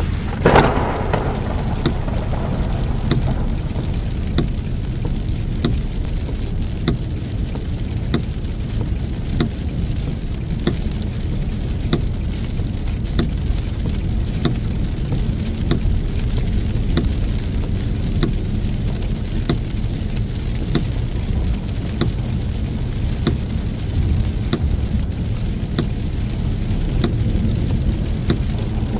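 Heavy rain beating on a car as it drives through a storm, over a steady low road-and-wind rumble. There is one sharp loud hit about half a second in, and faint ticks recur at regular intervals.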